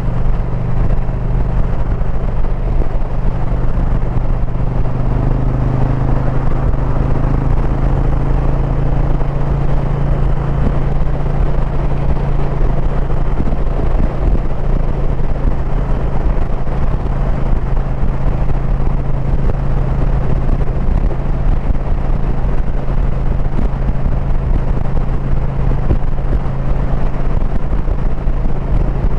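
2022 Indian Pursuit's V-twin engine running steadily at cruising speed, with wind and road noise from the ride.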